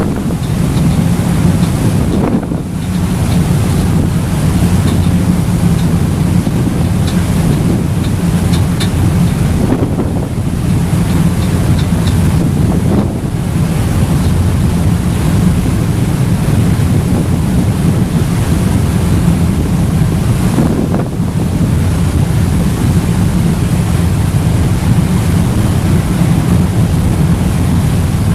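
Ferry engine running with a steady low drone, under wind buffeting the microphone and rushing water from the hull. The wind briefly drops away a few times.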